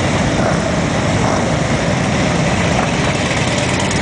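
Several big touring motorcycles riding slowly past one after another, their engines running with a steady low pulsing.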